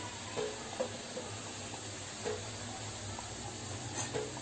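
Wheat-flour biscuits deep-frying in hot oil, a steady sizzle over a low hum, with a few light taps of a steel slotted spoon as the fried biscuits are lifted out onto a plate.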